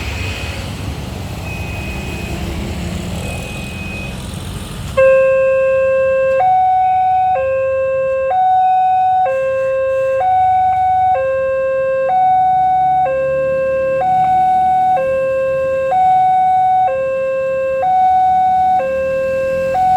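An Indonesian railway level-crossing alarm: a loud electronic two-tone signal alternating between a lower and a higher tone, each held about a second, starting abruptly about five seconds in. Before it there is traffic noise with a faint high beep repeating about every second and a half.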